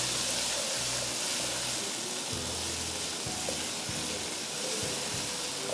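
Strips of beef sizzling steadily in hot oil in a wok as they brown, stirred now and then with a wooden spatula.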